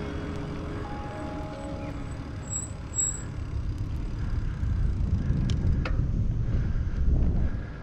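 Wind noise on the microphone of a camera riding along on a moving bicycle, growing louder toward the end, with two short clicks near the middle. Background music with held notes fades out in the first two seconds.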